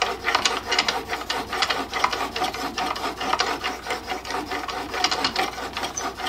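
Stanley No. 8 plane blade being sharpened on a soaked water stone: steel scraping across the wet stone in quick, steady back-and-forth strokes.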